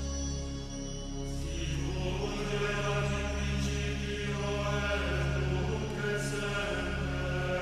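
Background music: slow, with long held notes that change every second or two.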